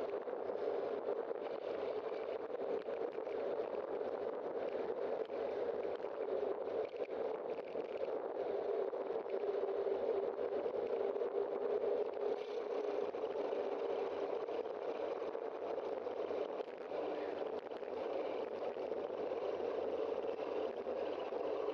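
Steady rushing of wind and tyre-on-road noise picked up by a bicycle-mounted camera while riding, with occasional small knocks from bumps in the pavement.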